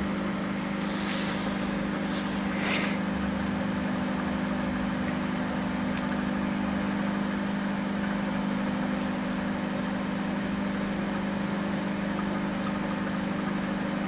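Panasonic microwave oven running with its casing off: steady mains hum from the high-voltage transformer and the cooling fan while the newly fitted LG 2M213 magnetron heats a glass of water. There are a couple of short hisses in the first three seconds.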